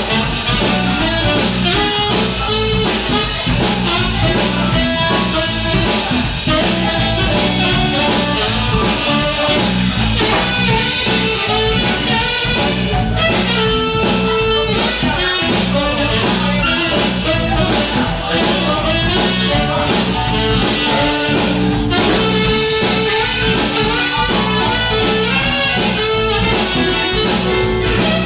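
Live band playing an upbeat groove with electric guitar, bass guitar, saxophone and drum kit over a steady beat.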